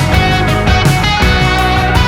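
Pop-rock song with guitars and drums playing an instrumental passage between sung lines.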